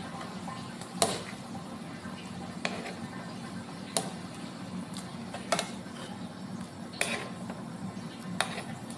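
Scrambled egg mixture bubbling in a nonstick pan with no oil: about seven sharp pops, spaced irregularly a second or so apart, over a steady low hum.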